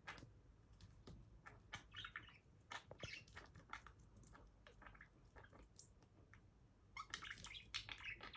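Pet budgerigar playing with its toys: faint scattered clicks and taps, with soft chirping chatter about two seconds in and again near the end.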